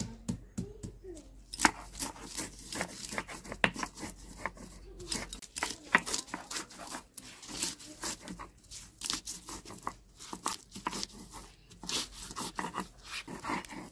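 Stone roller (batta) pounding and grinding garlic, green chillies and spices on a flat stone slab (sil), giving a fast, irregular run of hard knocks and crunching, scraping strokes.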